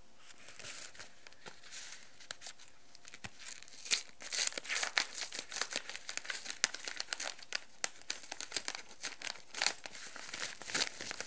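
Mailing package being torn open by hand: the packaging crinkles and tears in a dense run of crackles and sharp snaps, sparse at first and busiest from about four seconds in.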